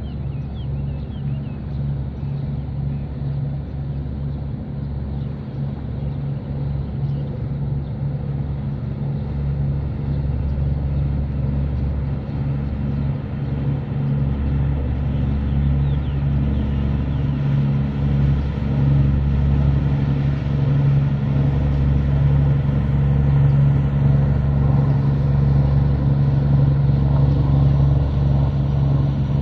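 Low, steady engine drone of vessels coming into the harbour, a small launch and a cargo ship, growing gradually louder as they approach.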